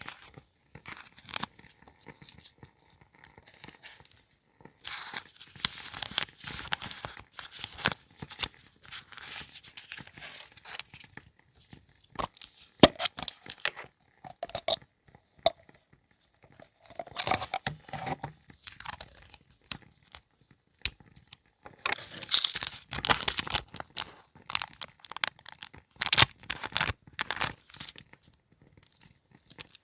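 Paper and stationery being handled: irregular bursts of rustling and crinkling, with scattered light clicks and short pauses between.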